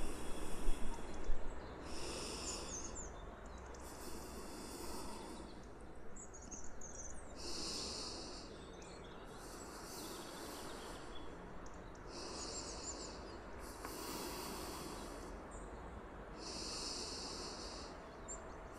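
Outdoor ambience of insects buzzing in repeated high-pitched bursts of about a second, roughly every two to three seconds, with faint bird chirps between them over a low steady hiss. A few brief louder sounds come in the first second and a half.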